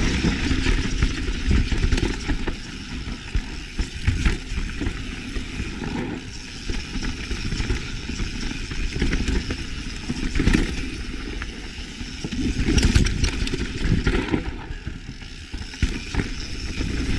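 Mountain bike riding down a rough, technical trail: steady wind and tyre rumble on the ride-along camera's microphone, with the bike clattering over bumps and rocks again and again.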